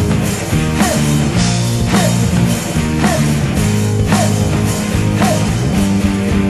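Background music: an instrumental stretch of a song, with sustained bass notes and a strong beat about once a second.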